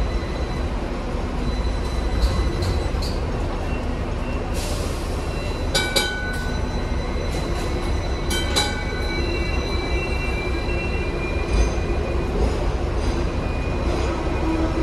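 Hong Kong double-decker electric tram running on street rails: a steady low rumble of wheels on track. About six and eight and a half seconds in come sharp metallic clicks that ring briefly, and high thin wheel-squeal tones come and go.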